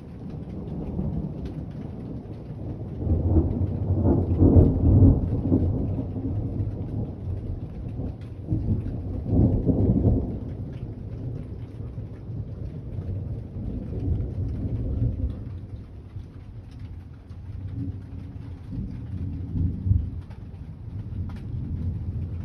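Thunder rolling and rumbling for many seconds during rain, swelling loudest about four seconds in and again about ten seconds in, then grumbling on more quietly. Faint patter of rain falls throughout.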